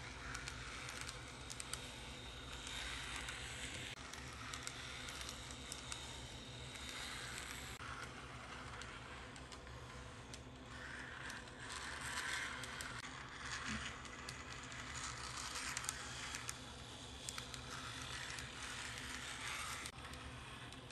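Model tram running along the track: its small electric motor whirring and its wheels rattling and clicking on the rails, growing louder and softer as it moves along the layout.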